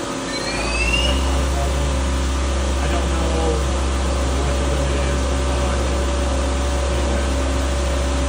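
Doosan MX-2100ST CNC multi-tasking lathe running. A whine rises in pitch near the start, then a steady low hum sets in about half a second in and holds, with steady machine tones above it.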